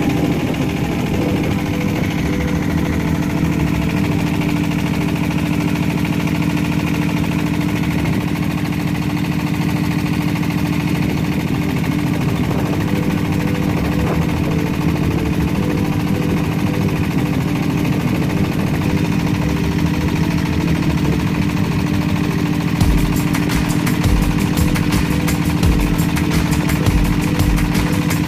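A small engine running steadily at an even speed. From about twenty-three seconds in, irregular low thumps and crackle join it.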